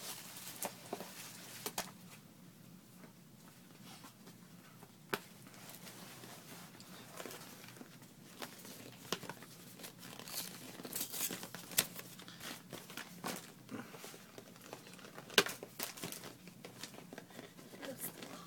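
Gift wrapping and tissue paper being torn and crumpled by hand in scattered crinkles and rips, busier in the second half, with one sharper, louder crackle about fifteen seconds in.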